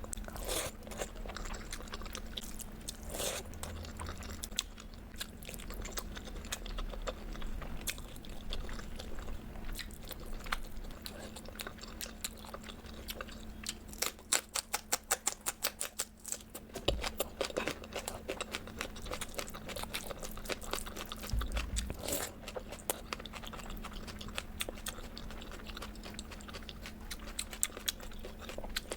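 Close-miked chewing and biting of crunchy food, with crisp crunches that come thick and fast about halfway through.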